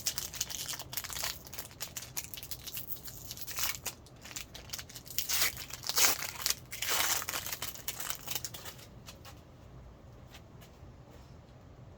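Plastic wrapper of a Fleer Ultra football card pack being torn open and crinkled, a busy crackling that dies down about nine seconds in to a few faint ticks.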